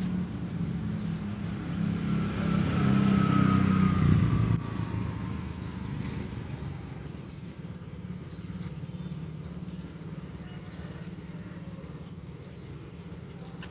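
A motor vehicle passing by: its engine grows louder to a peak about four seconds in, with a tone that falls in pitch as it goes past, then fades into a fainter steady rumble.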